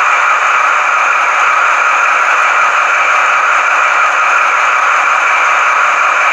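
Sound decoders of two H0-scale V90 (DB class 290) diesel model locomotives, an ESU LokSound 4.0 and a Trix mfx, playing their diesel engine sounds at the same time through small onboard speakers: a steady engine drone.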